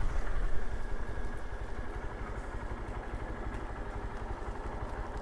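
Motorcycle engine easing off over the first couple of seconds, then idling steadily.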